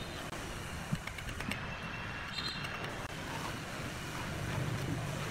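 A couple of light clicks of a steel bricklaying trowel against brick and mortar, over a steady low background rumble.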